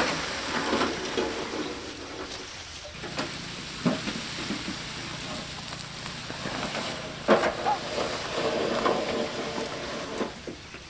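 Tall grass and millet stalks rustling and crackling against a laden handcart as it is pushed through them, with three sharp knocks from the cart spread through.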